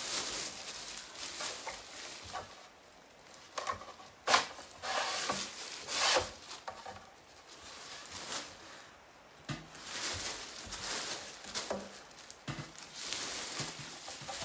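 Plastic sheeting crinkling and rustling as it is handled and pulled back over a pottery wheel, with scattered clicks and knocks from the Griffin Grip being worked on to tighten it down, the sharpest about four seconds in.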